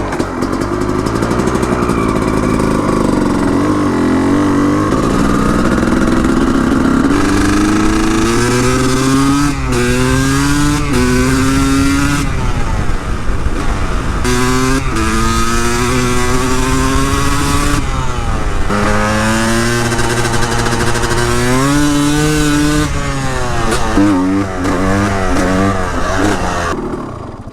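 Honda CR250's two-stroke single-cylinder engine under hard acceleration on the ride. Its pitch climbs in each gear and drops back at each upshift, with several shifts in quick succession, and shorter blips of throttle near the end.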